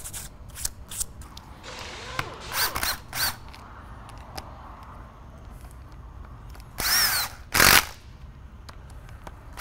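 Cordless drill spinning a small wire brush in the bolt threads of a brake caliper half, cleaning off rust before reassembly. It runs in several short bursts, each spinning up and winding down: two about three seconds in and two more about seven seconds in.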